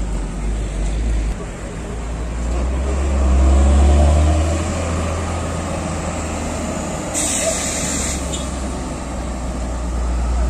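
Heavy cargo truck's diesel engine running low and deep as it drives slowly past, growing louder around four seconds in. A little after seven seconds an air brake lets out a sharp hiss lasting about a second.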